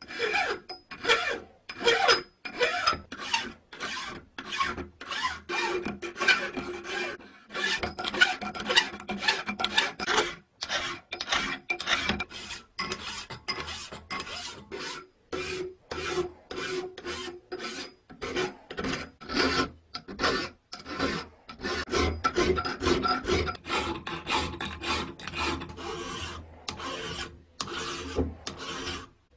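Flat hand file rasping across the metal parts of a vintage scale held in a bench vise, in steady back-and-forth strokes a little under two a second, with a few brief pauses.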